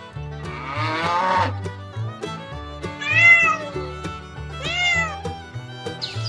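Domestic cat meowing: a longer call about a second in, then two clear, arched meows about three and nearly five seconds in, over background music with a steady bass line.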